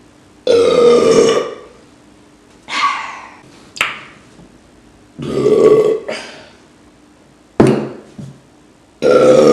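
A woman burping loudly, about five burps in a row: some are drawn out for about a second, others are short and abrupt.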